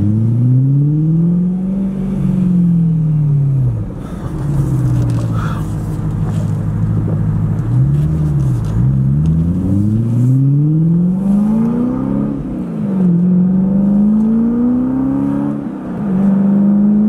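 BMW E90 M3's 4.0-litre V8, fitted with exhaust cutouts, pulling under throttle. The engine note climbs and drops back several times as the car accelerates and shifts, heard from inside the cabin.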